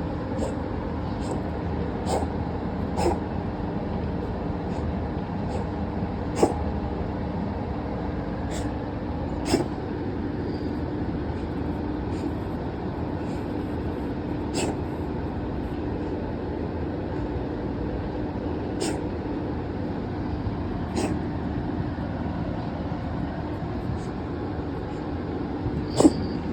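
A cat giving short, sharp sneeze-like hacks at irregular intervals of a few seconds, over a steady background rumble with a faint hum; the owner wonders whether the cat is coughing.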